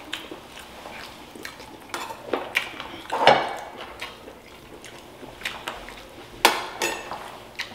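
Metal spoons clinking and scraping against ceramic bowls and plates during a meal: a scatter of short, separate clinks and taps, the loudest about three seconds in and again about six and a half seconds in.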